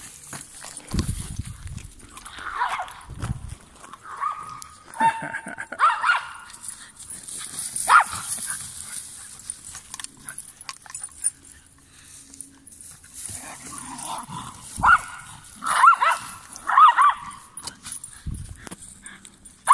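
Dog barking in short, high-pitched barks while playing: scattered single barks through the first half, then a quick run of three near the end. Low rumbles of the microphone being knocked early on.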